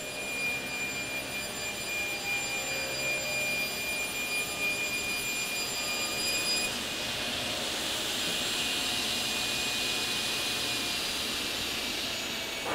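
Sliding table saw running, with a steady high whine that gives way to a broader rushing noise about seven seconds in as boards are edged for glue joints.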